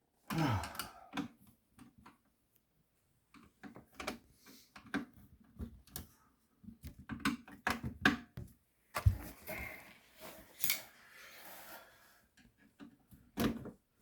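Irregular light clicks, taps and knocks of parts and tools being handled while fitting a garbage disposal, with a louder thump about nine seconds in.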